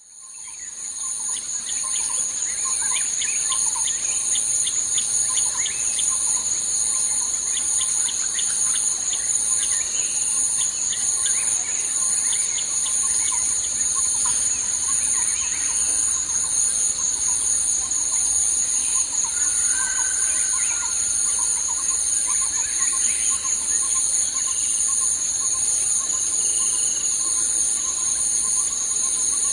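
Steady high-pitched trilling chorus of insects with many short bird chirps scattered through it, fading in over the first couple of seconds.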